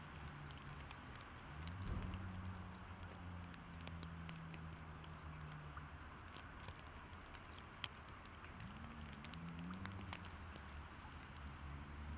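DD16 diesel locomotive's engine idling with a low steady hum, its pitch rising briefly about two seconds in and again about nine seconds in. Faint scattered ticks of falling wet snow sound over it.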